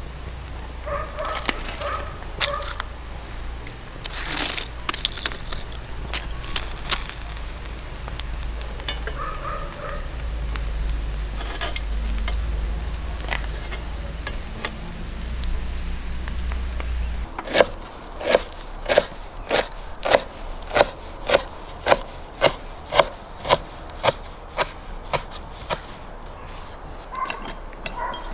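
Skewered sturgeon grilling over charcoal: scattered crackling and sizzling from the coals and the cooking fish. From about two-thirds of the way in, a run of sharp, regular knocks, about two a second, comes in and is the loudest sound.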